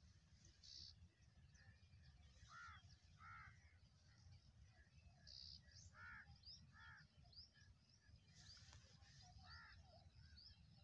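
Faint bird calls outdoors: a harsh, crow-like call coming in twos, three times, with small birds chirping high and thin throughout, over a low steady rumble.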